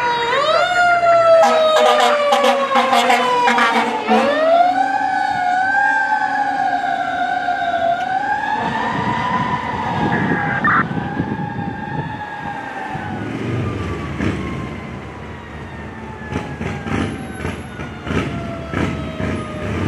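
Fire engine siren wailing: it falls, climbs sharply about four seconds in, wavers, then slowly winds down, with a rapid run of short horn blasts in the first few seconds. Heavy truck engine noise rises in the second half as the apparatus passes.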